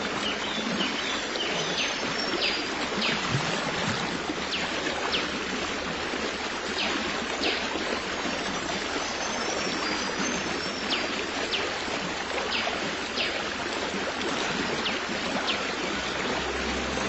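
Flowing stream running steadily, with scattered short, high chirps that each fall quickly in pitch.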